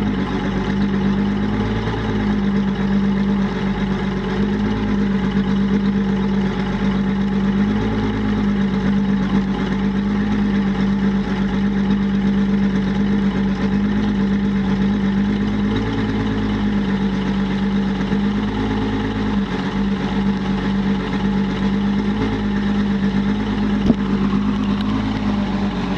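Evinrude E-TEC 250 V6 two-stroke outboard idling steadily on a cold start after three to four months of sitting without fuel stabilizer. There is one sharp click near the end.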